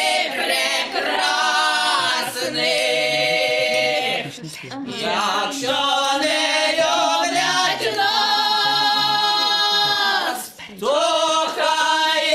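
A song in Ukrainian with voices singing long, drawn-out notes and little instrumental backing, with two short breaks between phrases, about four and a half and ten and a half seconds in.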